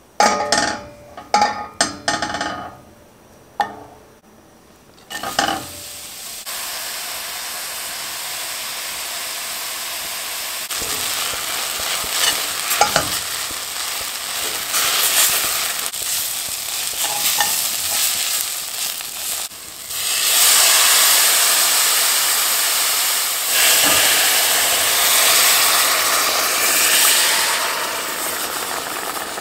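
A few sharp clicks of a metal knife against a stainless steel pot, then sliced onions sizzling in butter with a steady hiss while a metal spoon stirs and scrapes the pot. The sizzle grows louder about two-thirds of the way through.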